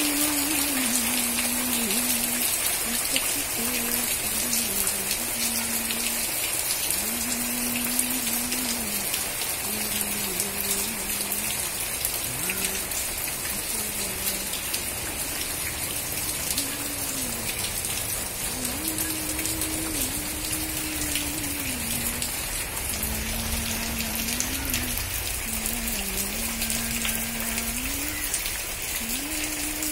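Steady monsoon rain falling, an even hiss of drops on leaves and surfaces. A faint low tone wavers and slides between two pitches underneath.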